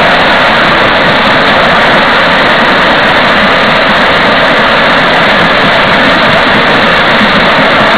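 Steady, loud running noise of a 7¼ inch gauge miniature train rolling along steel rails behind a battery-electric locomotive, an even rushing sound with no engine note and no breaks.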